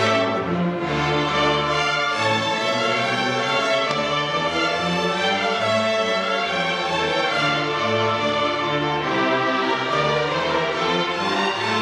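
Youth string orchestra of violins, violas and cellos playing together, bowing sustained chords over a low part that changes note about once a second.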